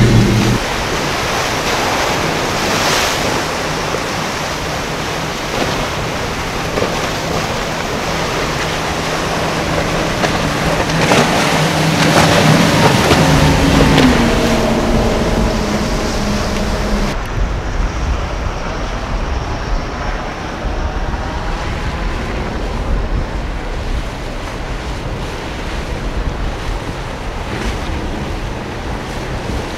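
Outboard motors of fast center-console boats running at speed, over the rush of water from their wakes and waves, with wind buffeting the microphone. The engine hum fades about halfway through, leaving water wash and wind rumble.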